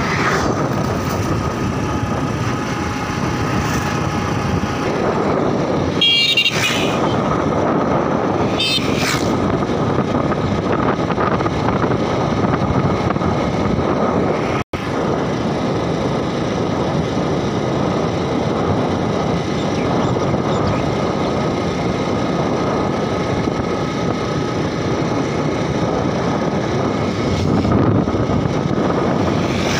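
Steady engine and wind noise from a vehicle driving along a road, with a horn sounding briefly twice, about six and nine seconds in.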